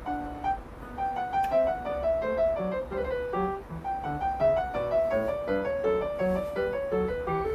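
Background piano music in a classical style, a quick, steady stream of single notes.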